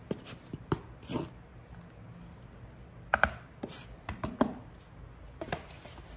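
Knife tapping and scraping on a plastic chopping board as diced red and green peppers are pushed off into a mixing bowl: a series of irregular light clicks and knocks, the sharpest about three seconds in.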